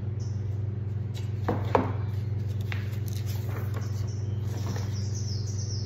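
Steady low hum with a few soft paper rustles and light taps as a picture-book page is turned, the clearest about one and a half seconds in.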